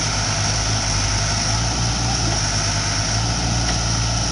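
Sumitomo 165 tracked excavator's diesel engine running steadily under load as the machine tracks up a trailer's loading ramp.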